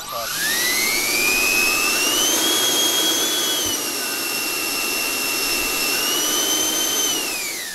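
Two electric ducted-fan engines of a large RC Boeing 777-9X model spool up with a rising whine and a rushing of air, hold steady at part throttle, then spool down near the end. They are held to low throttle because the speed controllers detect only six of the twelve battery cells.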